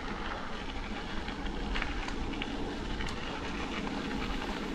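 Mountain bike tyres rolling over a gravel road: a steady crunching rumble with scattered sharp ticks of small stones.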